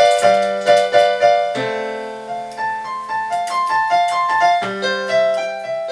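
Portable electronic keyboard played with a piano sound: chords under a melody of struck notes that ring and die away, several notes a second.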